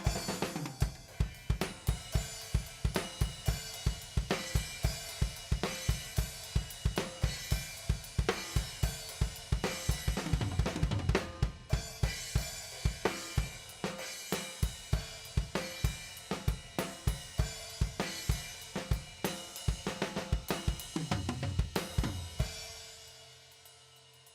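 Drum-driven music track: a drum kit plays a fast, steady beat of kick, snare and cymbals. The beat stops near the end and leaves a cymbal ringing out and fading.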